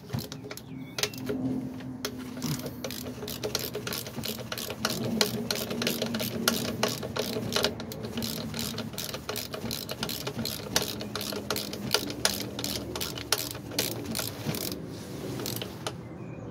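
Ratchet wrench clicking in a quick, steady run as it works a bolt, loosening the lower mounting bolt of the alternator so the alternator can swing and free the belt.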